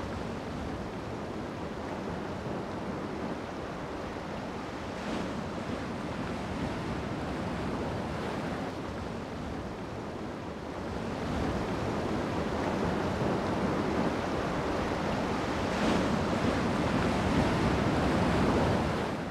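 Ocean surf breaking and washing over rocks below a sea cliff: a continuous rushing roar that swells louder about halfway through, with occasional surges as waves break.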